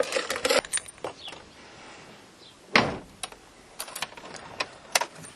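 Scattered sharp clicks and knocks: a quick cluster at the start, one louder thump nearly three seconds in, and a few more clicks about four to five seconds in.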